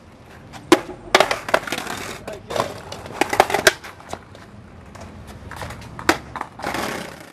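Skateboard decks clacking and slapping against a concrete sidewalk in an irregular run of sharp wooden knocks, several of them close together in the first half.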